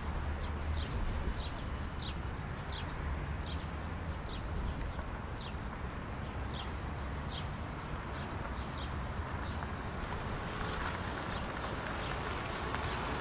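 A bird chirping over and over, short high falling chirps about one or two a second, over a steady outdoor noise with a low rumble.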